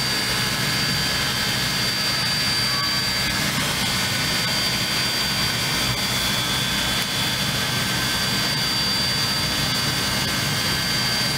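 Steady running noise of a standing locomotive: a constant hum and hiss with a thin, steady high whine over it, unbroken throughout.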